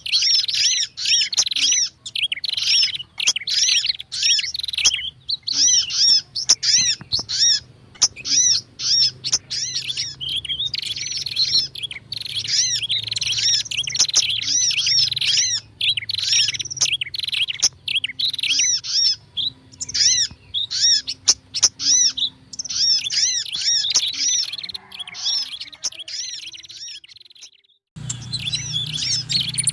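Dense, fast chirping and chattering of small songbirds, a bird-lure recording combining prinia (prenjak), sogon and sunbird (kolibri) calls. The calls fade out for a moment near the end, then start again.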